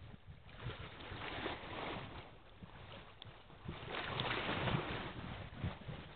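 Wind buffeting the microphone in uneven gusts, with low thumps and a rushing hiss, growing louder about two-thirds of the way through.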